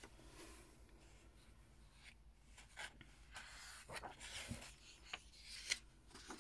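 Faint paper sounds from hands on a paperback colouring book: fingers rubbing and smoothing the pages, then a page being turned, with soft rustles and a few light clicks in the second half.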